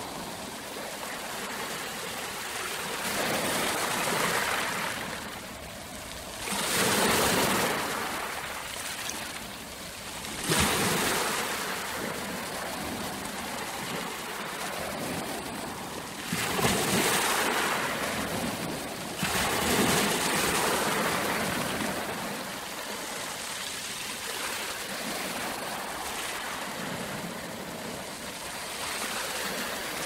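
Ocean surf: waves breaking and washing in, a steady rush that swells into a louder surge every few seconds.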